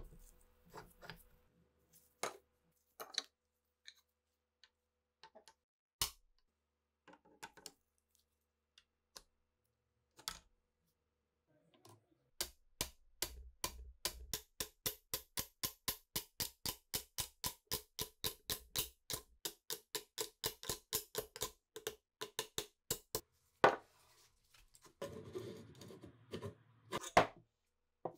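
A hammer striking the steel of an SA-26 submachine gun held in a vise: scattered light metal clicks, then a long even run of sharp blows at about four a second for some ten seconds, followed by a louder metal clatter near the end.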